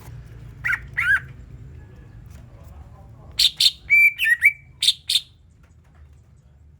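Cucak ijo (green leafbird) calling: two short chirps about a second in, then a quick run of sharp chirps and whistled notes near the middle.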